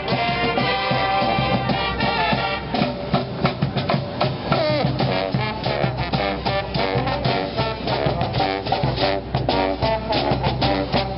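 Street brass band playing: horns such as trumpets and trombones over a driving drum beat.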